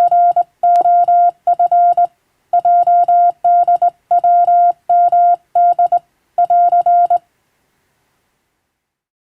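Morse code (CW): a single steady beep keyed on and off in dots and dashes, grouped into letters with short gaps between them. It stops about seven seconds in.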